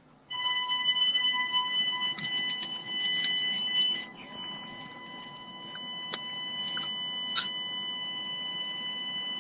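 Home security alarm sounding a continuous high-pitched electronic tone, set off by the panic button. It starts abruptly about a third of a second in, and scattered short clicks and knocks sound over it.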